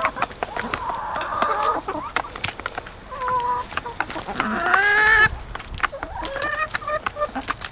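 A flock of hens clucking while they peck food from a tray, with many quick clicks of beaks striking it. One hen gives a longer call, rising in pitch, about halfway through.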